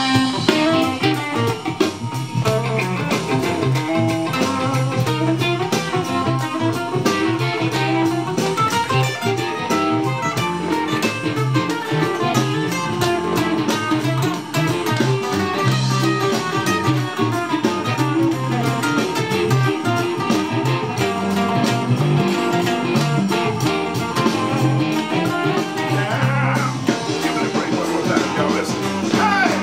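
Blues band playing without vocals, electric guitars to the fore, at a steady level.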